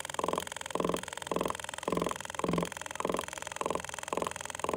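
Meta V digital auto machine's SMP handpiece buzzing in short regular bursts, about two a second, as the needle taps pigment dots into the skin.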